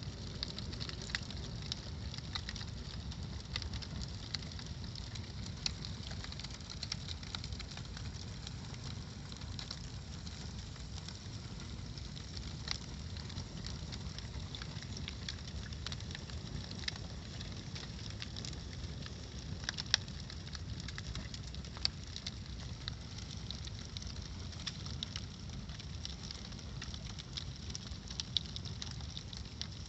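Bonfire crackling with frequent small pops and snaps, one louder snap about 20 seconds in, over a steady low rumble.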